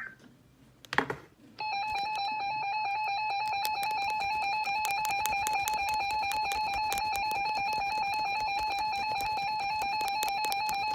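Emergency Alert System attention signal over NOAA Weather Radio: a steady, shrill alert tone that starts about a second and a half in and holds for about nine seconds, signalling that a warning message follows. A short knock comes just before it.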